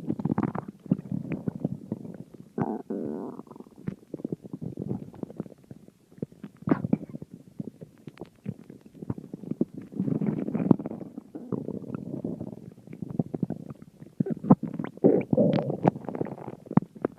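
A stomach growling: irregular gurgling rumbles in several bouts, broken by many quick pops and clicks, busiest near the end.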